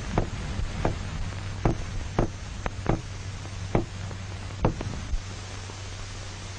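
About eight sharp knocks on a tabletop at uneven intervals, stopping about five seconds in: a sound stimulus given to test an isolated dog's head's reaction to noise. A steady low hum and hiss from an old film soundtrack runs underneath.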